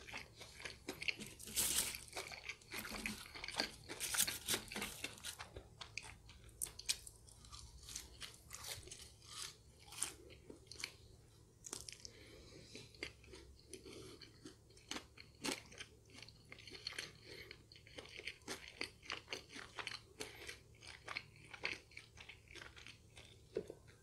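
Close-miked chewing of crispy McDonald's McWings fried chicken: the crisp coating crunches in many quick, sharp bites, most densely in the first few seconds.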